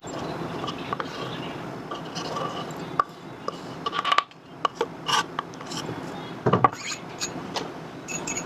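Irregular clatter of kitchen items being handled: scattered knocks, clicks and rubbing as food containers and utensils are moved about, with a cluster of sharper knocks later on.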